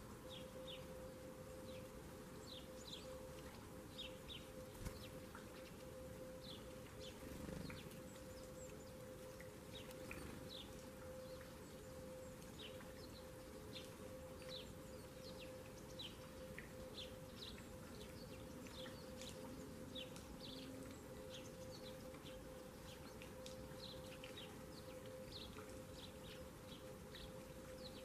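Small songbirds calling off and on in quick, high chirps, a steady scatter of short notes, over a faint steady hum.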